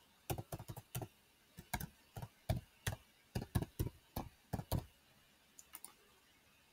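Computer keyboard typing: a quick, uneven run of key clicks for about five seconds, then a couple of faint clicks near the end.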